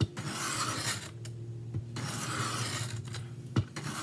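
Steel knife blade drawn along a Work Sharp Benchstone's diamond sharpening plate: two long gritty scraping strokes of about a second each with a short pause between, then a sharp click near the end. The strokes are raising a strong burr on the edge.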